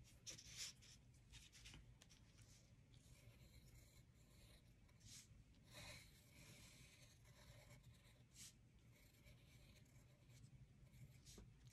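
Faint pencil strokes scratching on paper as designs are sketched, with a few louder strokes scattered through, over a low steady hum.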